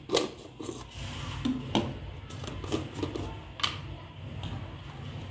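A spoon and spice containers being handled as spices are measured out: half a dozen scattered sharp clicks and taps over a steady low hum.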